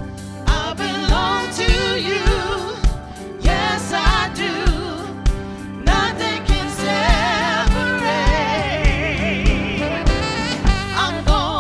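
Live gospel worship band: women singing the lead with vibrato over a drum kit's steady kick-drum beat, with saxophone and electric guitar in the band.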